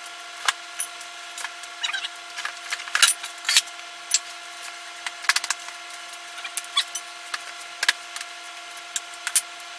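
Wooden sand-casting flasks (cope and drag) knocking and clattering, with sand scraping, as a sand mold is shaken out after an aluminum pour. There are irregular sharp knocks throughout, the loudest about three seconds in, over a steady hum.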